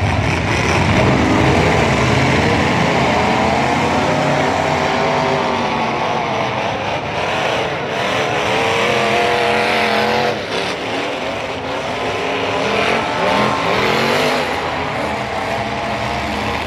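Several derby cars' and trucks' engines revving hard as they are driven in reverse around a dirt track, their pitch rising and falling repeatedly and overlapping.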